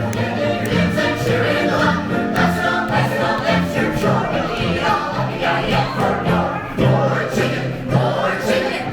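Live stage music: several voices singing together over a band with a steady bass line.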